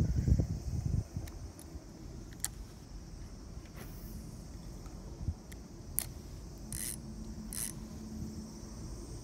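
Quiet outdoor ambience: a steady faint high hiss with a few small sharp clicks and two short rasps near the end, after a low rumble on the microphone in the first second.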